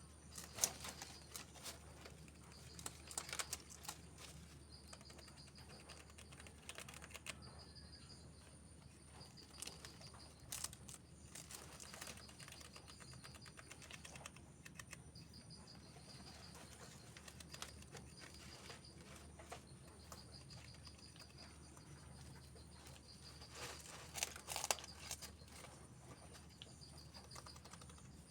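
Faint, irregular clicking and crackling in scattered clusters, with an insect chirping steadily in short repeated pulses.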